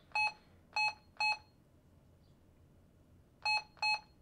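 Retevis RT95 dual band mobile radio's key-press beeps as a frequency is keyed in: five short beeps, all the same pitch. Three come in quick succession, then after a gap of about two seconds two more follow.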